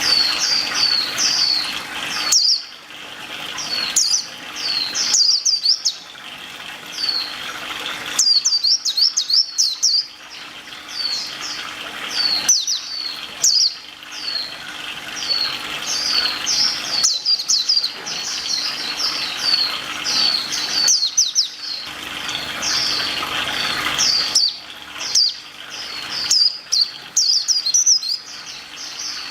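A songbird chirping over and over: short, high notes that sweep downward, coming in quick runs with brief gaps. A steady hiss sits underneath in some stretches and drops out abruptly in others.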